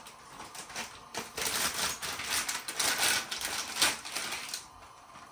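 Crinkling of a plastic instant-noodle packet as it is squeezed and shaken over the pan, starting about a second in and stopping near the end, with one sharp crackle just before it stops.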